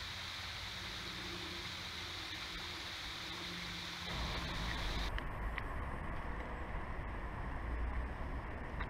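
Steady hiss of outdoor ambience beside flowing river water; about four seconds in it switches abruptly to a louder low rumble of distant city traffic, with a few faint short high ticks.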